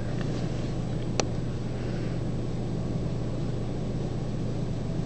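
Steady low hum with hiss, and one sharp click about a second in.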